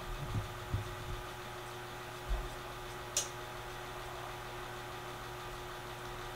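Quiet room tone with a steady electrical hum. There are a few soft, low knocks in the first second and again about two seconds in, and one light click about three seconds in.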